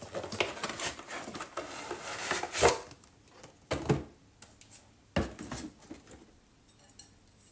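Cardboard packaging rustling as a box of ceramic bowls is opened, then the bowls knocking against each other and the box as they are lifted out: one loud knock about a third of the way in and two lighter ones after it.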